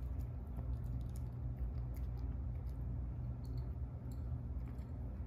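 Miniature poodle puppy eating dry kibble from a bowl: small, irregular crunches and clicks throughout. Under it runs a steady low hum.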